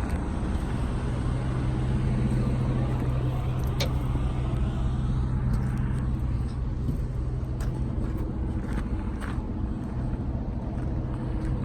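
Heavy truck's diesel engine idling nearby, a steady low hum, with a few light clicks.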